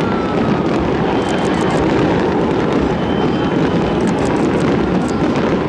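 Continuous rolling rumble of a fireworks barrage, with short crackles now and then.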